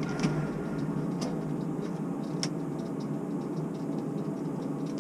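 Steady electric-motor hum of a tower crane's drives heard from inside the operator's cab, with a few light clicks about a quarter second, one second and two and a half seconds in.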